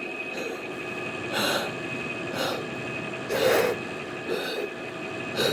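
A person blowing short puffs of breath into a window air conditioner, about one a second, the strongest in the middle, over the steady hum of the unit's fan. The compressor has not kicked on yet.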